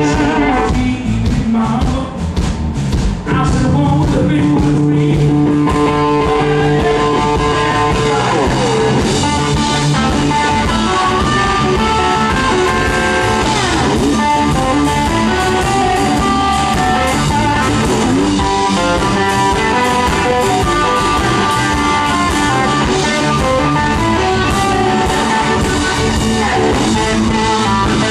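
Live blues band playing, led by electric guitar with long held lead notes, several bent up or down in pitch, over bass and drums.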